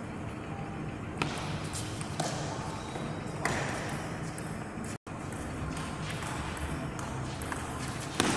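Table tennis ball knocks: a few sharp, widely spaced clicks of the celluloid ball on paddle, table or floor, the loudest near the end.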